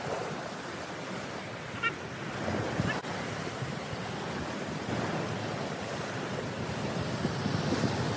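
Sea surf washing and breaking against the rocks below, a steady rushing, with some wind on the microphone.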